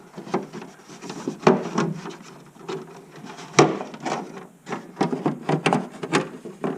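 An aftermarket battery box being wiggled and pushed into place in a car's engine bay: irregular knocks, clunks and scrapes against the mounting area. The sharpest knocks come about a second and a half in and again a little past halfway.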